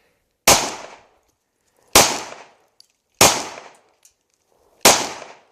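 Glock pistol firing four single shots, slow and evenly paced, about one and a half seconds apart, each shot ringing off briefly.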